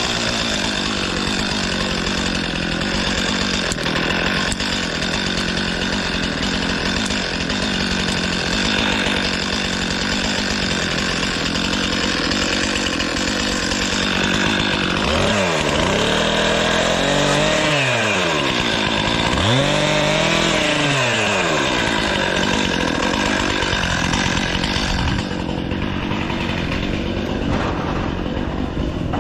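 Stihl two-stroke chainsaw running steadily while trimming branches. Twice in the middle, its engine speed drops and climbs again.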